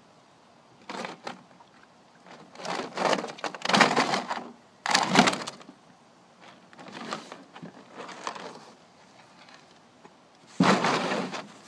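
A block of ice sliding and scraping over the bottom of a hard plastic kiddie pool as horses push and lick it with their muzzles. It comes in several irregular bursts of about a second, the loudest in the middle and near the end.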